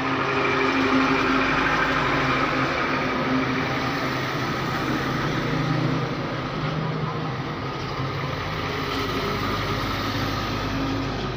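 Heavy tipper trucks driving past, their diesel engines running steadily over tyre and road noise.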